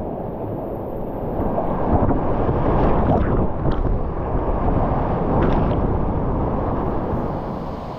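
Whitewater rushing and splashing around a kayak running a rapid, heard close up from a camera on the boat. It is a heavy, muffled rush that grows louder about one and a half seconds in, with a few sharper splashes, and eases off near the end.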